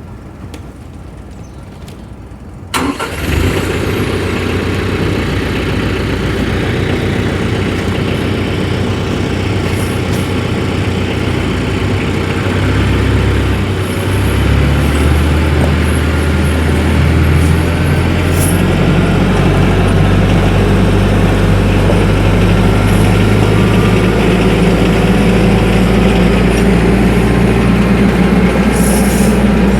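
TYM 474 compact tractor's diesel engine, coming in suddenly about three seconds in and then running steadily, its engine speed shifting partway through as the tractor is driven.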